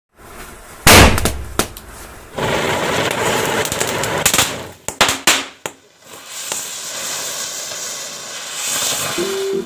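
Firecrackers going off: one very loud bang about a second in, then a stretch of dense crackling and hissing, three more sharp bangs around five seconds, and a long steady hiss that cuts off suddenly near the end.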